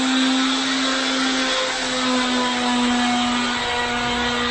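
An electric power tool's motor running steadily under a hiss, holding one pitch with only slight wavering.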